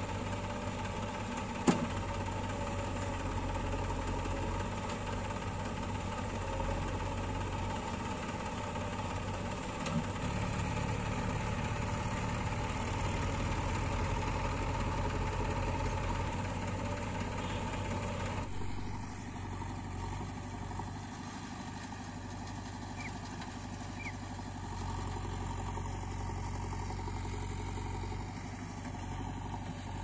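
Diesel engines of a JCB 3DX backhoe loader and a farm tractor running steadily while the backhoe loads soil into the tractor's trailer, with one sharp clank about two seconds in. After about 18 seconds the engine sound turns quieter and more distant.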